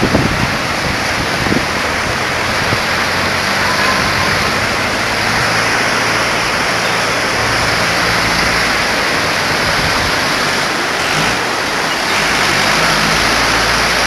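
Fast mountain river rushing over rocks in whitewater rapids: a steady, even rush of water.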